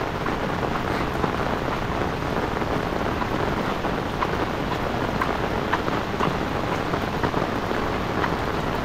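Steady downpour of rain, with scattered sharp taps of drops hitting an umbrella overhead.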